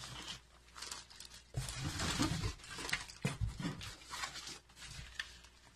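Plastic bags and cardboard rustling and crinkling as bagged pitcher plants are lifted out of a box and set down, in several irregular bouts.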